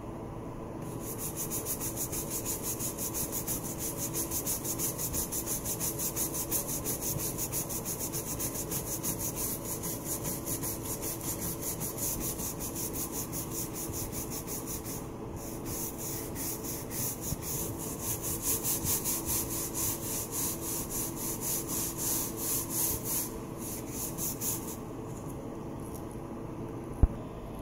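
A brush scrubbing the grout lines between glazed wall tiles in quick back-and-forth strokes. It pauses briefly about halfway and stops a few seconds before the end. A single sharp knock comes near the end.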